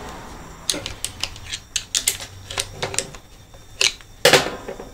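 Hand tool clicking and clinking on the steel selector linkage and bolts of a cast iron Powerglide transmission as the linkage is undone: a string of irregular sharp metal clicks, the loudest a short cluster near the end.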